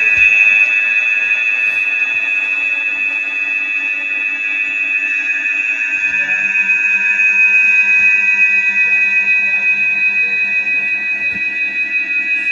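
A dense, sustained electronic drone of many steady high tones layered over each other, like held synthesized chords. A lower tone drops out at the start and comes back about six seconds in.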